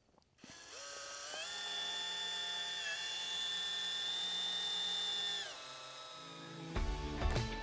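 Cordless drill with a number one Phillips bit driving a small fine-thread, cutter-tipped screw through a flange into a shower base: the motor whine spins up, runs steady for about four seconds with a brief dip, then slows and stops. Guitar music comes in near the end.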